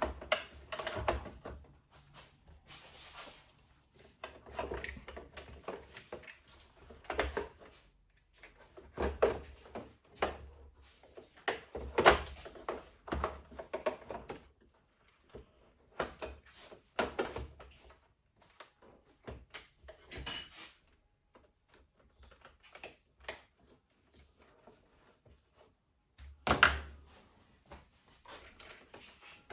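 Irregular knocks, clicks and clatter of hard parts and tools being handled while a coffee machine is taken apart, with a brief ringing clink about twenty seconds in.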